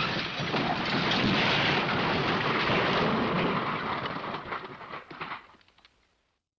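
Cartoon crash sound effect, the MGM 'elephant smash': a sudden, dense, rumbling smash that holds for about four seconds, then dies away with scattered crackles and stops.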